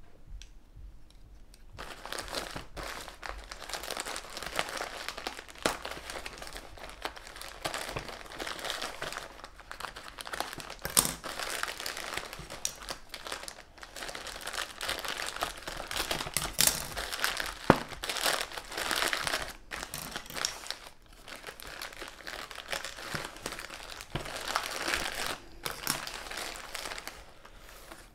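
Plastic packaging crinkling and rustling as a grey plastic mailer bag in a clear plastic wrap is handled, cut into with scissors and torn open, with many short sharp crackles and rips. It starts about two seconds in.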